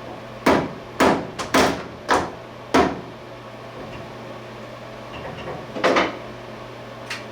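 Hammer blows on the lathe's chuck, tightening it onto the spindle nose: five sharp strikes about half a second apart, then one more about three seconds later.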